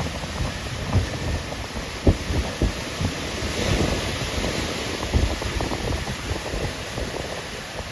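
Sea waves washing onto the shore, the surf swelling a little about halfway through, with wind buffeting the phone's microphone in irregular low thumps.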